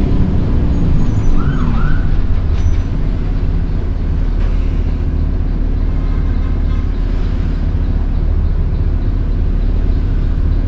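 TransJakarta city bus cabin on the move: a steady low engine and road rumble. Two brief high chirps come about a second and a half in.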